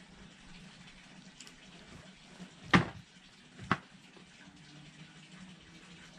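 Red fox handling raw chicken drumsticks in a plastic bowl on wooden decking: two sharp knocks about a second apart, the first much the louder, a little under halfway through, over a faint steady background.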